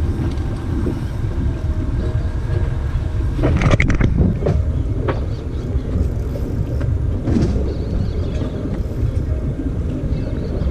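Steady wind buffeting on the microphone, mixed with water washing around a small boat, with a few brief knocks or splashes about four seconds in and again near seven seconds.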